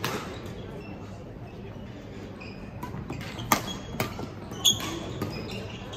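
Badminton play on an indoor court: rackets striking the shuttlecock in sharp hits, one right at the start and two more about 3.5 and 4 seconds in, with players' shoes squeaking briefly on the court floor.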